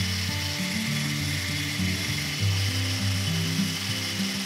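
Background music with a low bass line stepping from note to note. Under it, the steady hiss of an angle grinder's abrasive disc grinding down the end of a wooden axe handle.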